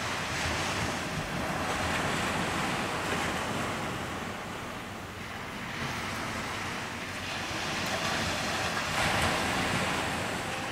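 Ocean surf washing in, the noise swelling and fading slowly as the waves come in, with wind rumbling on the microphone.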